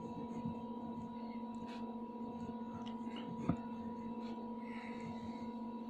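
A steady hum of a few fixed tones, with faint scratching of a pen writing on paper and one short click about three and a half seconds in.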